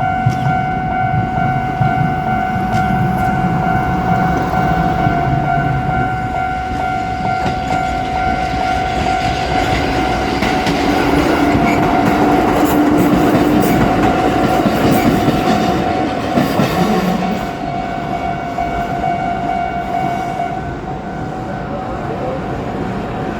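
Japanese level-crossing alarm ringing a steady electronic tone while a Kotoden electric train passes. The train's running noise and wheel clatter over the rail joints swell to their loudest in the middle and then ease off. Near the end the alarm's tone thins.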